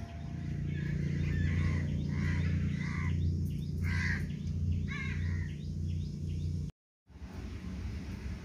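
A bird calling repeatedly, about one short call a second, over a steady low rumble of outdoor noise; the sound cuts out for a moment near the end.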